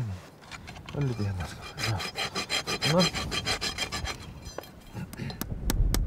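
Hoof rasp filing a horse's hoof in rapid, evenly repeated scraping strokes during reshoeing. A few sharp taps come near the end.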